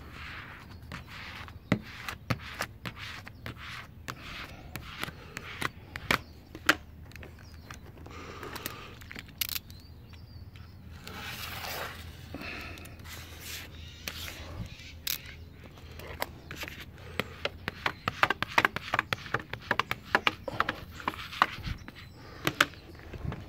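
Window tint film being worked on a car's rear glass: a hard card squeegee scraping over the plastic film, with many scattered sharp clicks and crinkles, thickest in the second half.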